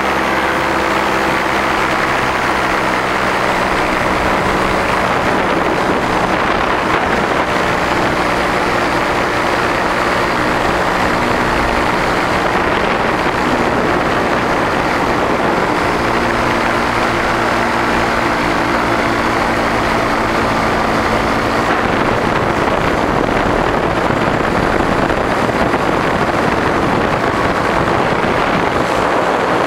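Paramotor engine running steadily in flight, heard from the pilot's seat with wind rushing over the microphone. About three quarters of the way through, the steady engine note fades and breaks up, leaving mostly wind rush.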